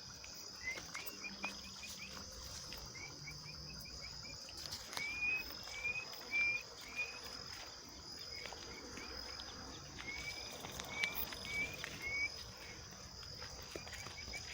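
Crickets trilling steadily in a high, continuous drone at dusk, with runs of short, rising chirps from another animal repeating over it every few seconds.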